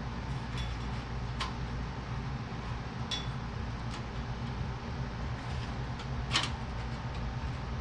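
A few light clicks and taps from parts being handled, over a steady low hum. The loudest tap comes about six seconds in.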